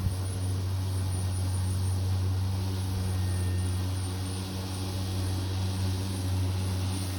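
EGO cordless battery lawn mower running, its electric blade motor giving a steady hum.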